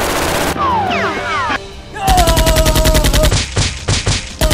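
Rapid automatic gunfire sound effects in bursts, with background music. There is a short rush of noise at the start, then rapid, evenly spaced shots from about halfway through to the end.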